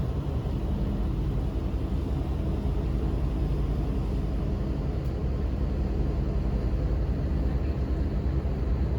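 Tour boat's engines running steadily, a low, even drone heard from aboard the vessel.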